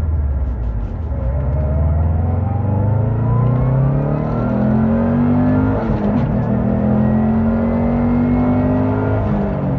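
Subaru WRX STi turbocharged flat-four on the stock VF48 turbo with its internal wastegate, accelerating under load. The revs rise with a thin rising whistle above them, break briefly about six seconds in as at a gear change, climb again, and drop near the end.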